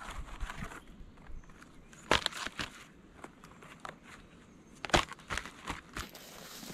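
Slabs of dry tree bark being handled and laid onto stacked logs: scraping and crackling, with several sharp knocks as the pieces are set down, the loudest about two seconds in and again about five seconds in.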